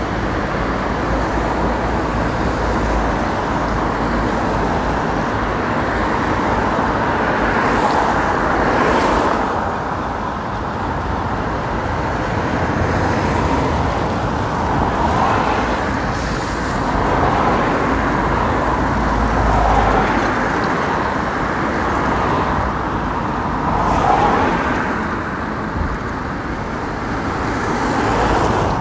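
Busy street traffic: a steady wash of road noise with several vehicles passing one after another.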